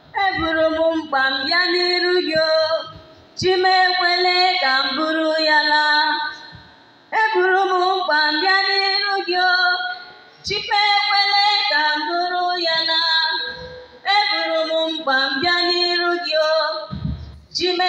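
A woman singing solo into a microphone without accompaniment, in phrases of about three seconds with short breaks between them.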